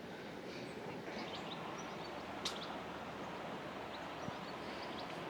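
Steady outdoor riverside ambience: an even low rush of background noise with a few faint bird chirps and a single sharp click about halfway through.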